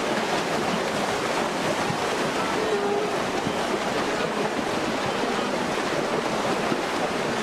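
A large herd of wildebeest crossing a river: a dense, steady splashing and churning of water from many animals plunging in and wading across.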